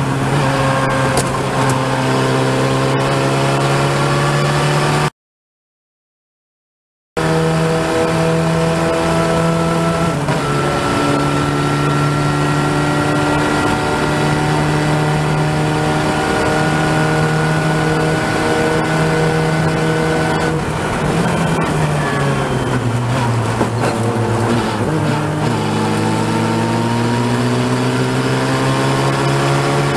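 Open-wheel race car's engine heard onboard at racing speed, with rushing wind. The engine note holds steady for long stretches, sinks in pitch about two-thirds of the way through, then climbs steadily as the engine revs back up. The sound drops out completely for about two seconds, about five seconds in.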